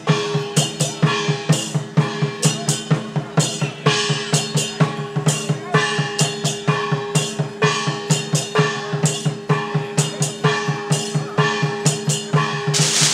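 Traditional dragon-dance drum-and-gong percussion playing a steady beat of about two strokes a second, the metal ringing on after each stroke over a pulsing drum.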